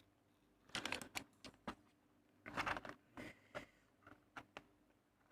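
Fingers picking and scratching at a small cardboard Lego box to open it, in two short bursts of light clicks and scrapes with a few lone ticks after.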